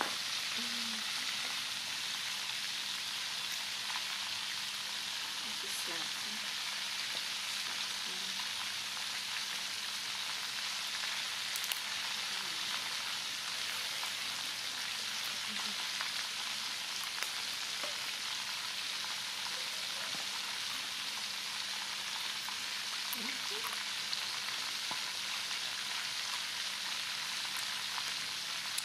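Steady sizzling hiss of food frying in hot oil, with a few faint clicks.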